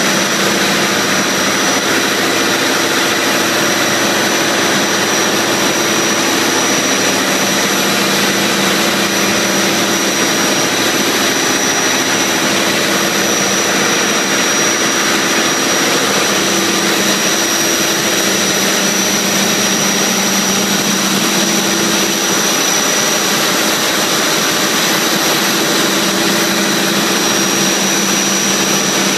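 Large inboard marine diesel engines running steadily, heard from inside the engine room: a loud, even drone with a steady high whine above it.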